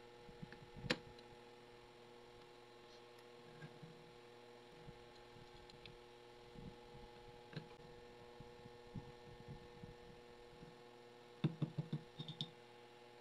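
Small clicks and taps of metal parts and a screwdriver being handled while a small drill press table is assembled, with a sharp click about a second in and a quick run of knocks near the end, over a faint steady hum.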